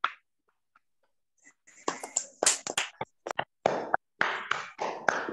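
People clapping, heard over an online video call. The claps come thick and uneven, starting about two seconds in after a near-silent pause.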